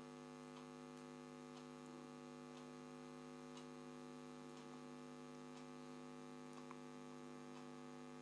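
Near silence: a steady electrical hum, with a few faint soft clicks.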